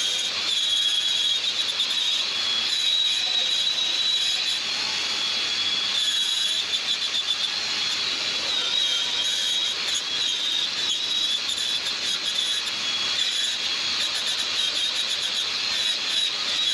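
Angle grinder grinding sheet steel, a steady high-pitched whine over rough grinding noise, held almost without a break.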